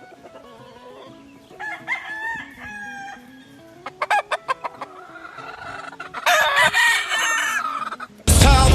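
Kelso gamefowl chickens clucking and calling, with a rooster crowing in one long call from about six seconds in. Loud rock music cuts in abruptly just before the end.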